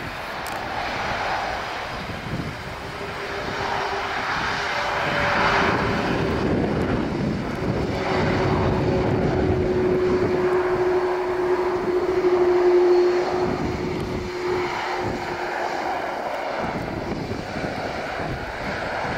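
Jet engines of an Airbus A330 rolling along a wet runway: a steady roar with a held whine, growing louder as the aircraft passes, loudest about two-thirds of the way in, then easing.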